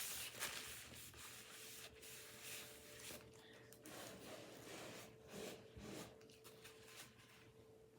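Near silence: room tone with a faint steady hum and a few soft rubbing and tapping sounds.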